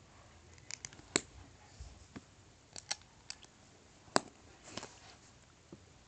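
LEGO plates and bricks clicking together as they are pressed and fitted by hand: a scattered series of sharp plastic clicks, the loudest about a second in and about four seconds in.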